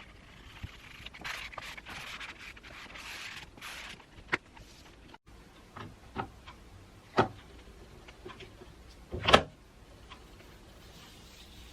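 Handling sounds from unboxing or fitting iPad accessories: a stretch of rubbing and rustling, then several separate sharp taps and clicks, one of them much louder than the rest.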